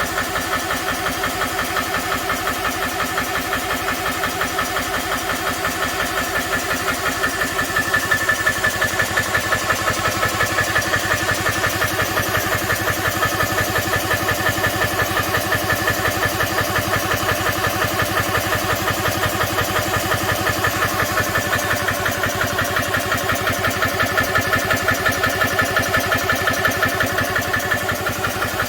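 GX CS2 portable oil-free PCP air compressor running steadily while filling an air gun, its pump beating in a fast, even pulse with a steady whine over it. It gets a little louder about eight seconds in.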